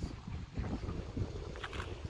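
Wind buffeting the microphone: a gusty, low rumbling noise, with a few brief faint higher sounds near the end.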